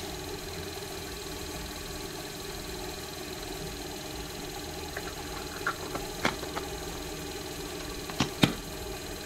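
Steady motor hum with a faint high whine, from a small cue lathe. About halfway come a few light clicks, then two sharp knocks near the end as tools are picked up and set down on a wooden workbench.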